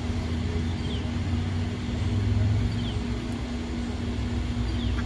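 Steady low mechanical rumble with a constant hum, like vehicle traffic. A northern cardinal sings faintly over it, short falling whistles repeated about once a second.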